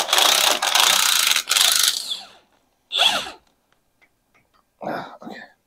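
Impact wrench hammering in a few bursts on a seized steering gearbox mounting bolt that will not turn, stopping about two seconds in.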